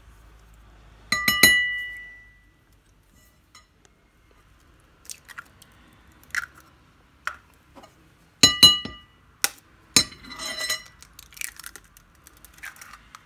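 Eggs knocked against the rim of a cut-glass bowl, the glass ringing briefly with each knock: once about a second in and again about eight and a half seconds in. Softer clicks and crackles of eggshell being pulled apart follow.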